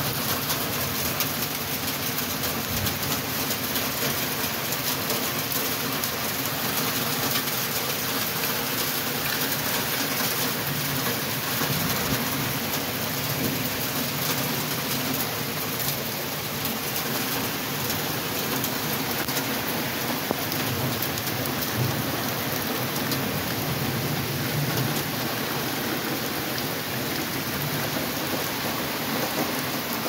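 Heavy thunderstorm rain pouring steadily, with gusty wind through the trees.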